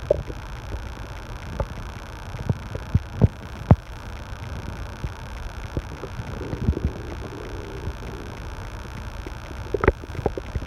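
Stomach gurgling in irregular small pops and low rumbles, with a longer soft gurgle about two-thirds through and a sharper pop near the end, over the steady hum of an air conditioner.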